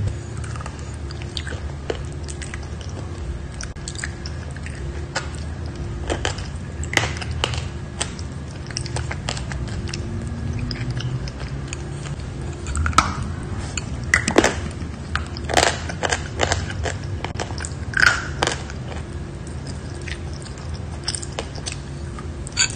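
Chalk being bitten and chewed close to the microphone: scattered dry crunches and crumbling, loudest in a run of sharp crunches a little past halfway, over a low steady hum.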